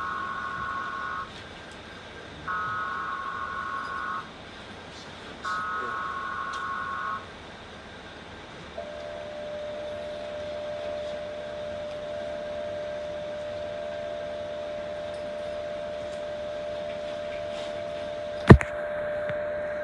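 Emergency Alert System tones played lowered in pitch: three short bursts of SAME header data tones, then about a second and a half later the two-tone attention signal starts and holds steady. A single loud sharp click cuts in near the end over the attention tone.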